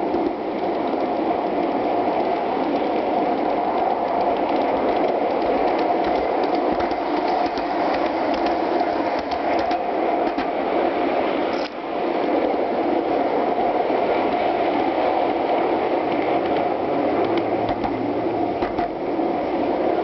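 Gauge one garden-railway cars rolling along the track, heard from on board the train: a steady, fast metallic rattle and ticking of small wheels over the rails, dipping briefly about halfway through.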